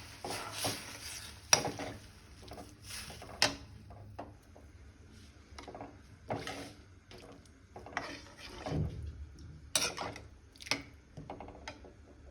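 Cooking spoon knocking and scraping in a pan, with a light sizzle over the first few seconds, then scattered knocks and clinks of utensils.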